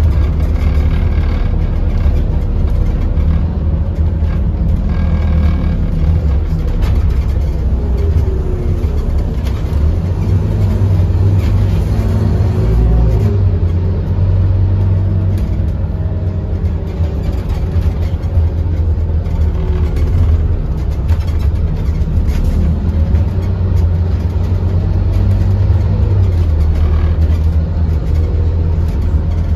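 Scania OmniCity N230UD double-decker bus running along the road, heard from inside the upper deck: a steady low rumble from its five-cylinder diesel engine, the engine note rising and falling several times in the middle.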